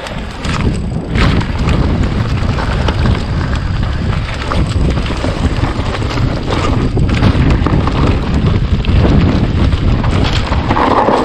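Wind rumbling on the microphone of a camera riding on a bike, mixed with the bike's rattles and knocks over rough trail.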